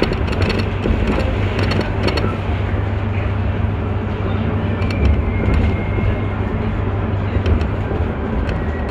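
City bus under way, heard from inside the cabin: a steady low engine and drivetrain drone with road noise, and scattered light clicks and rattles.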